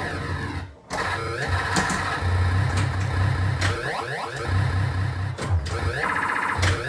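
1979 Williams Gorgar pinball machine in play: electronic game sounds with sweeping, falling tones over a low pulsing throb, broken by several sharp clacks from the playfield.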